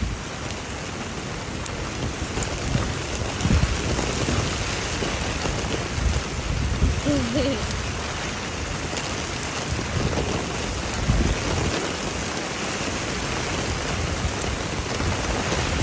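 Steady rain falling, with low rumbles rising and falling every few seconds.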